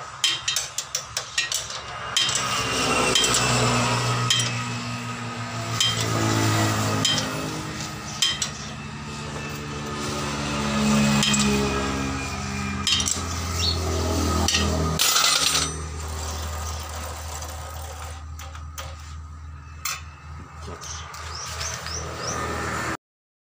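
Metal spanner clinking and tapping on a motorcycle's rear axle fittings, a series of sharp metal clicks, thickest in the first couple of seconds, over a low background hum. The sound cuts off suddenly near the end.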